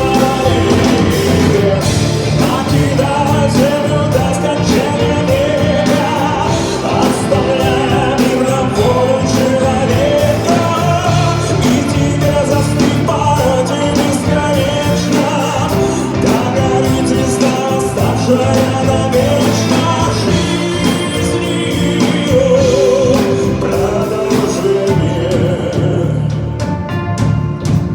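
A man singing live with band accompaniment, his voice holding long notes with vibrato over steady drums and instruments.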